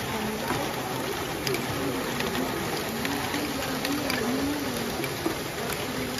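LEGO Great Ball Contraption modules running: small motors whirring with a pitch that wavers up and down, and plastic balls clicking and clattering through the mechanisms.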